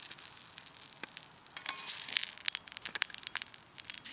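Irregular sharp crackles and pops from hot oil in a cast iron skillet over a wood-burning Solo Stove, with a metal spatula scraping and clinking against the pan as the last touton is lifted out.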